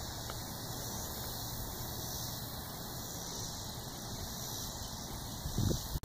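Steady outdoor background hiss with a low thump about five and a half seconds in, like wind buffeting the microphone. The horse's hoofbeats are not clearly heard.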